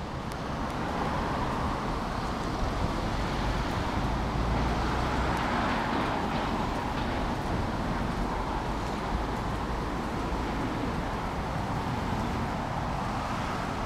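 Steady outdoor background noise of road traffic, an even hiss with a low rumble underneath.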